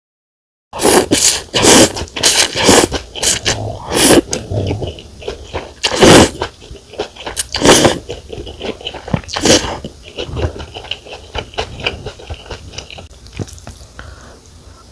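Close-miked slurping and chewing of rice noodles from pho, starting about a second in as a rapid series of loud, irregular slurps and mouth noises that turn into softer chewing toward the end.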